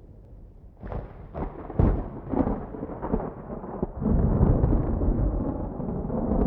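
A thunderclap over light rain: a run of sharp crackling strikes about a second in, building into a loud, long low rumble from about four seconds in.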